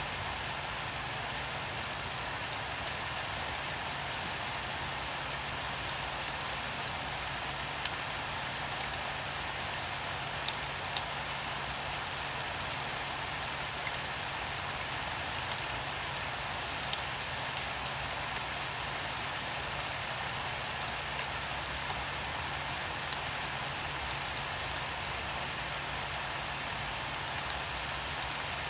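Steady rain falling, an even hiss with scattered sharper drop ticks. A low steady hum runs underneath.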